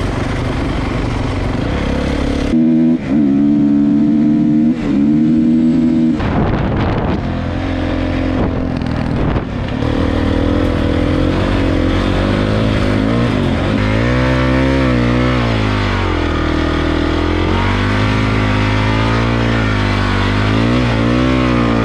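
Dirt bike engine under way, the throttle opened and closed so the engine note climbs and drops again and again, hardest about three to six seconds in. A steady rush of wind on the microphone runs underneath.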